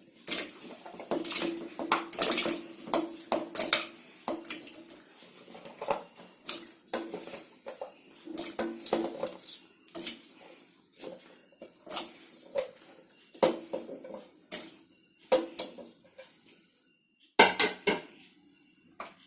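Pieces of cassava (tapioca) being dropped and handled into a metal cooking pot: irregular clatters and knocks against the metal, with the loudest cluster near the end.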